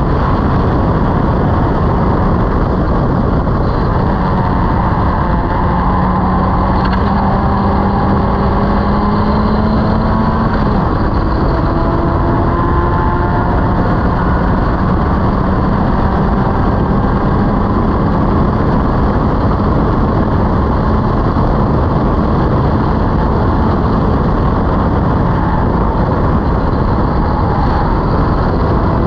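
Locost race car's engine pulling hard on track, heard from the open cockpit under heavy wind and road noise; its pitch climbs slowly and drops about eleven seconds in at a gear change.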